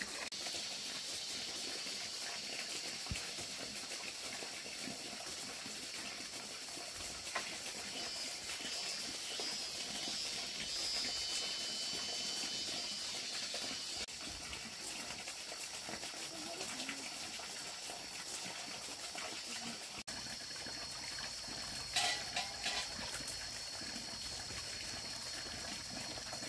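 Steady rushing noise of running water, with a steady high-pitched hum above it and a few short knocks.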